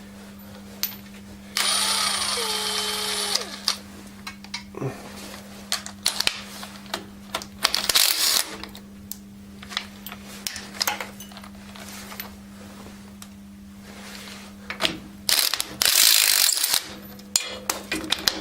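Ratchet wrench clicking and metal tools clinking as bolts are undone from the Ferguson TEF's hydraulic lid, with two louder stretches of noise: one about two seconds in that falls in pitch as it stops, and one near the end. A steady low hum runs underneath.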